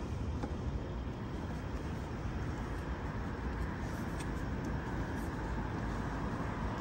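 Steady road traffic noise, a constant low hum of vehicles.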